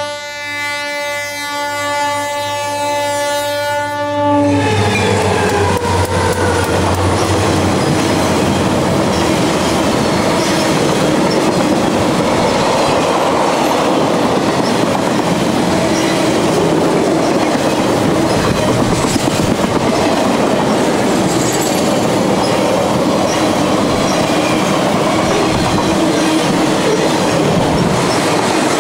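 A Conrail diesel locomotive's air horn sounding a steady chord, cutting off about four seconds in. Then a freight train of trailers on flatcars rolling past, with steady wheel-on-rail noise and clickety-clack over the rail joints.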